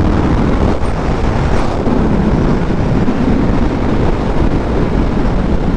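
Motorcycle on the move: wind rushing over the microphone, with the engine's drone underneath, steady throughout.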